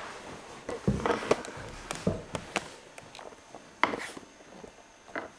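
Irregular knocks, taps and rubbing sounds, about ten in a row and unevenly spaced, the loudest around one second and four seconds in, fading near the end.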